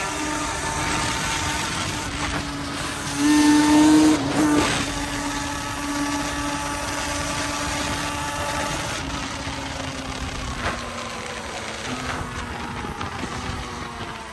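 Vehicle engine running at a steady road speed over wind and road noise; about three seconds in, the engine note turns louder for about a second.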